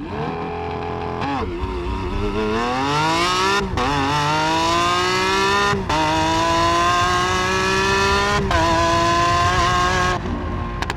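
A car engine accelerating hard through the gears. The revs climb steadily and fall back sharply at three upshifts, then ease off near the end.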